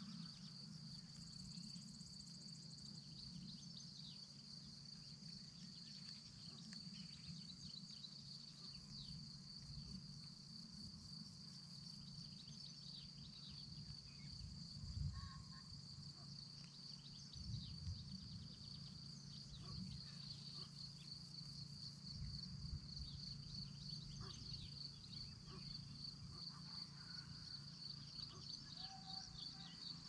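Faint meadow ambience: a steady, high, pulsing trill of insects in the grass, with scattered short bird calls over it and a low hum underneath. A few soft low thumps come about halfway through and again a few seconds later.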